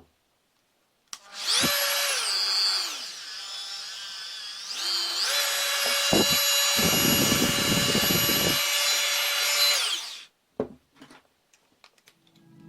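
Fein MultiMaster 350 W oscillating multi-tool running with a high whine: it starts about a second in, slows briefly, speeds back up and runs steady, then is switched off about ten seconds in. A rough low rasp joins it for about two seconds in the middle.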